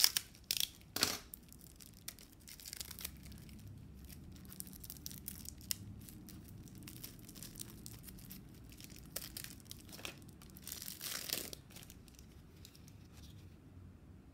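Clear plastic shrink-wrap being torn and peeled off a deck of cards, crinkling. The sharpest tears come in the first second or so, with a longer burst of crinkling about ten seconds in, then it quietens as the cards come free.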